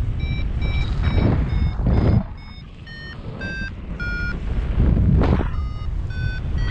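Paragliding variometer beeping about twice a second, the pitch of its beeps stepping lower partway through: the climb is weakening. Heavy wind buffets the microphone throughout, surging twice and easing briefly in the middle.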